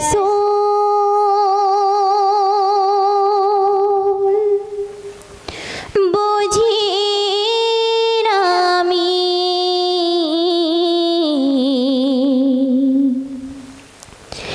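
A female voice singing unaccompanied the slow, drawn-out opening of a naat. It holds one long note with wide vibrato for about four seconds, takes a short breath, then sings a longer phrase that steps down in pitch twice before fading near the end.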